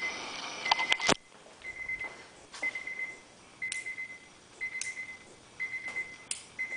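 A steady high electronic whine cuts off at a sharp click just over a second in. After that, a high electronic beep repeats about once a second, each beep lasting about half a second.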